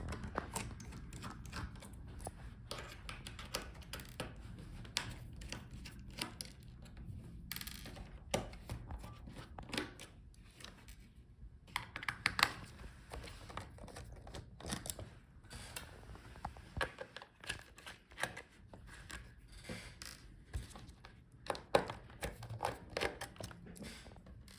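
Irregular light clicks and taps of a small screwdriver working the laptop's metal display hinge screws loose, with the screws and tool being handled.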